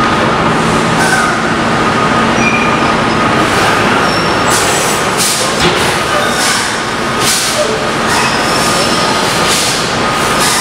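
Curbtender garbage truck running with its body tipped up to dump, engine and hydraulics making a steady loud noise with a faint high whine, while refuse clatters and slides out of the body onto the floor; several short rushes of noise come in the second half as more of the stuck load lets go.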